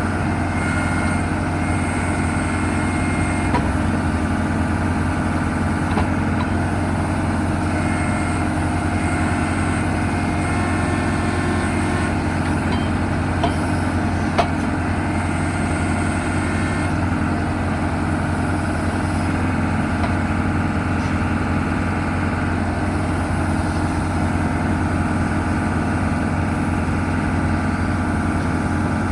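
JCB 3CX backhoe loader's diesel engine idling steadily at an even pitch, with a few faint clicks.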